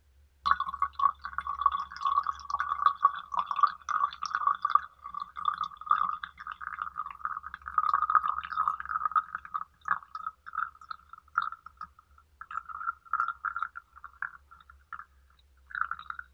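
A thin stream of water poured into a glass pitcher of loose green tea leaves: a steady bubbling splash that breaks up into intermittent dribbles after about ten seconds and stops near the end.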